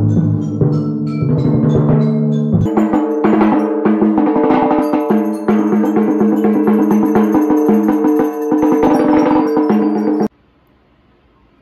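Percussion played with mallets: a run of drum strokes and ringing pitched notes over sustained tones, stopping abruptly about ten seconds in.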